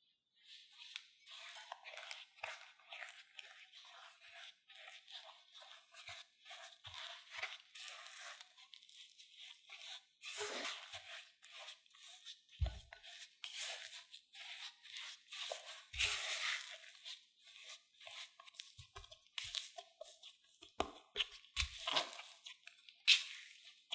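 Silicone spatula stirring and pressing corn starch into mashed potato in a glass bowl: a run of crumbly, scraping strokes, with a few dull knocks of the spatula against the bowl.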